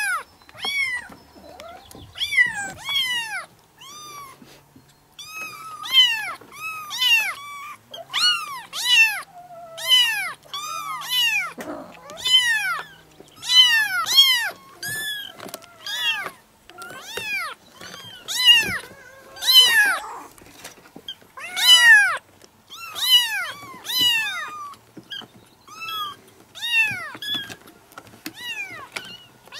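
Several young kittens meowing over and over: a steady run of short, high-pitched mews, often overlapping as more than one calls at once.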